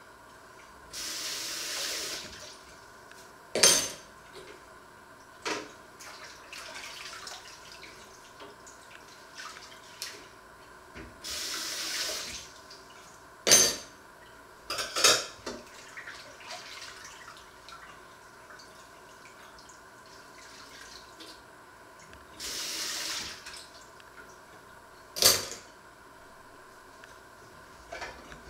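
Dishes being washed by hand at a kitchen sink. The tap runs in three short spurts of about a second each, and pots and dishes clink and clank sharply in between.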